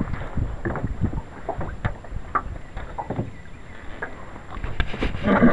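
Handling noise aboard a jon boat: clothing rustling and scattered light knocks and taps as someone moves about, with a louder rustling burst near the end.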